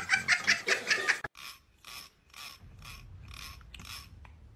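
Laughter in quick pulses for about the first second, cut off abruptly. Then a quieter run of evenly spaced scratchy rasping strokes, about two and a half a second, stopping near the end.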